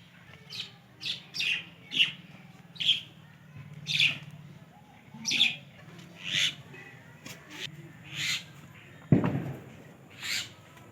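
A bird chirping in short, repeated high calls, roughly one a second, with a single sharp knock about nine seconds in.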